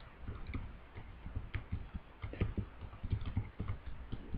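Typing on a computer keyboard: a quick, irregular run of keystroke clicks with low thuds.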